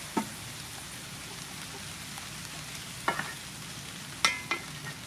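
Stir-fry sizzling steadily in an aluminium wok, with water just added, while a wooden spatula stirs it. It knocks against the pan four times, and the loudest knocks, about a second from the end, ring briefly off the metal.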